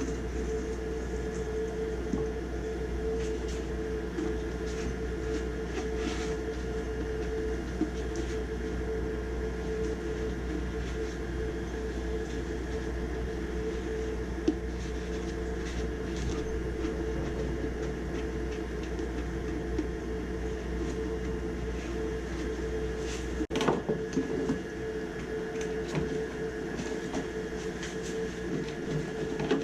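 Steady mechanical hum of a running furnace, with a constant tone over a low rumble and a few light clicks. The low rumble drops away after an abrupt break about 23 seconds in.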